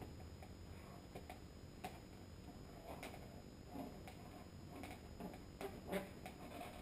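Faint, scattered ticks and rubbing of a marker drawing on an inflated latex balloon, with the balloon creaking lightly in the hands.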